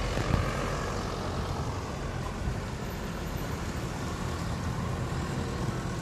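Vehicle engines running as cars and a pickup truck drive slowly along a snow-covered street, with a steady low rumble of wind on the microphone.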